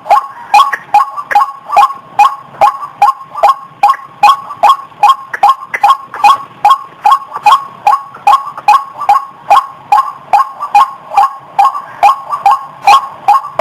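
White-breasted waterhen (ruak-ruak) calls used as a bird-lure recording: a short, nasal "wak" note repeated evenly and without a break, about two to three times a second.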